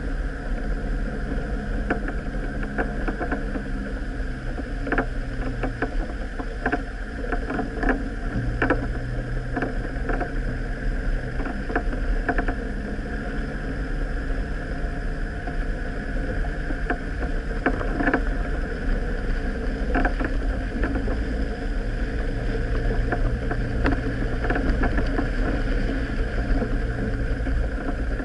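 Off-road vehicle engine running at low speed over a bumpy grass track, its pitch stepping up and down every few seconds with the throttle. Scattered sharp knocks and rattles from the vehicle jolting over the ruts.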